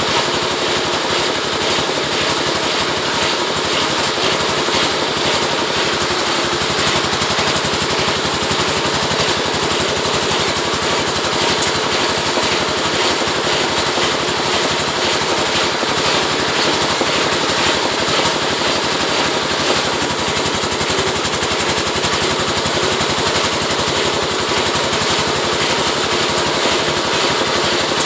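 Oil palm leaf-rib (lidi) scraping machine running steadily, with a fast, even mechanical rattle that does not let up.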